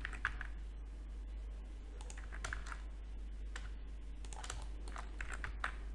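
Computer keyboard keys pressed at irregular moments, a dozen or so short clicks spread across the few seconds, over a steady low hum.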